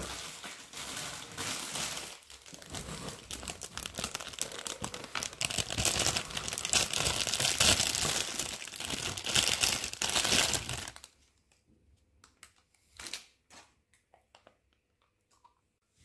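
Clear plastic bag of dog treats crinkling as it is handled and shaken, loudest past the middle and stopping about eleven seconds in. A few faint ticks follow.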